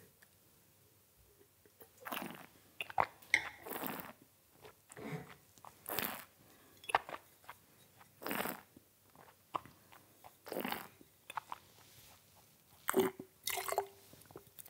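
Red wine being tasted by mouth: a string of short slurps and swishes as the wine is drawn in with air and worked around the mouth, then spat into a handheld spittoon, with a louder cluster of sounds near the end.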